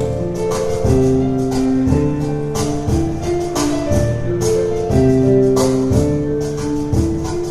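Live instrumental music: piano chords and melody, with hand-percussion strikes keeping a quick beat.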